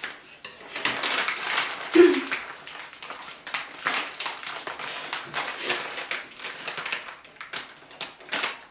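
Irregular rustling, crinkling and light clicking of hands handling food and packaging while toppings are put on a pizza. One short, sharp sound about two seconds in is the loudest moment.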